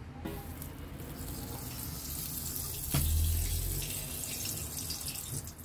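Vegetable frying fat sizzling as it melts on a hot gas griddle plate. A knock about three seconds in is followed by a brief low rumble.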